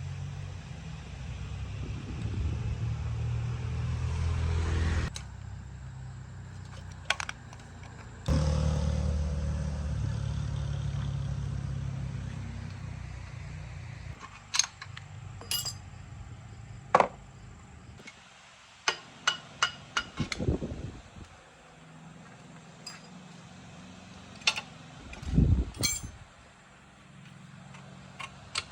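A motor runs in two stretches of several seconds, swelling and then cutting off sharply. Then, from about halfway through, comes a string of sharp metallic clinks and knocks of tools and parts being handled.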